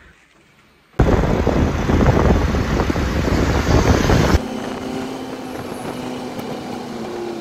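Loud rushing road and wind noise starts abruptly about a second in. A few seconds later it drops suddenly to the steadier running of an auto-rickshaw's engine heard from inside the cab, with a faint held low hum.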